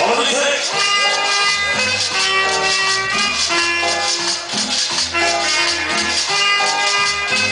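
Latin dance music played loud through a large sonido sound system, with held melody notes over a bass line and a steady shaker rhythm.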